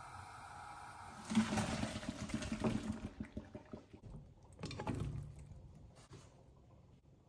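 Boiled sweet potato cubes being drained and returned to the saucepan: a soft steady hiss from the pot on the gas burner, then about a second in a sudden rush of poured water lasting a couple of seconds, and a shorter burst later as the cubes tumble from a colander into the pan.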